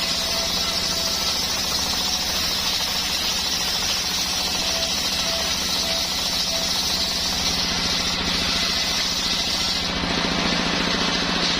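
Homemade engine-driven circular sawmill running, its blade cutting coconut wood with a steady high hiss over the engine's drone. About ten seconds in the cutting hiss falls away and the engine runs on alone.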